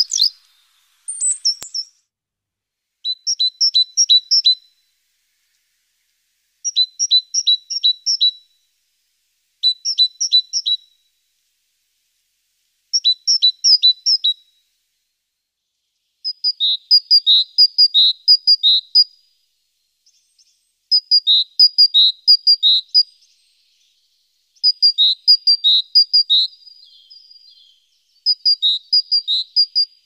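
A small songbird singing: repeated short phrases of quick high chirps, each phrase a handful of notes alternating between two pitches, coming every two to three seconds and growing denser from about halfway.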